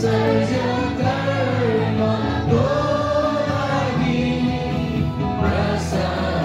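A Christian worship song: a group of voices singing in sustained, gliding lines over steady instrumental accompaniment.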